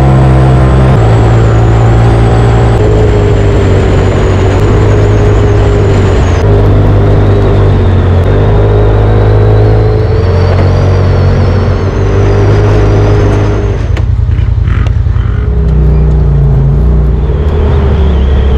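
Polaris RZR Turbo S's turbocharged twin-cylinder engine running hard under race load, with a thin high whine over it for the first several seconds. About fourteen seconds in the engine note falls away briefly, then picks up again.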